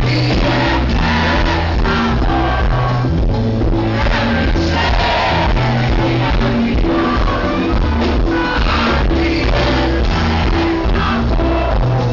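Live band music with a singer's voice over a steady, repeating bass line, loud and full throughout.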